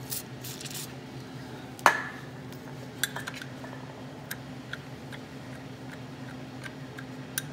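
A short hiss of penetrating oil sprayed from an aerosol can through its straw, then one sharp metal clank and a scatter of light metallic clicks as a box-end wrench is fitted and worked on a nut welded onto a seized, broken bolt in a cast-iron engine block. A steady low hum runs underneath.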